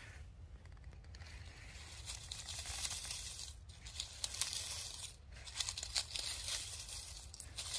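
Dry leaves and twigs crackling and rustling as a hand rakes and gathers them from the forest floor, in bursts with brief pauses.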